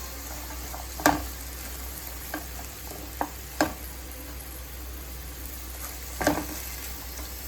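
Chicken pieces and chopped beans sizzling in hot oil in a pan while being stirred, with a utensil knocking sharply against the pan about five times.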